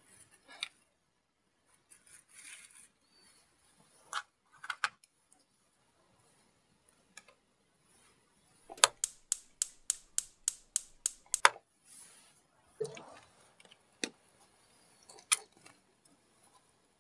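Plastic toy kitchen pieces handled with light taps and clicks. In the middle comes a quick even run of about ten sharp clicks, about four a second, as the toy cooktop's buttons are pressed. A soft thump and a couple more clicks follow.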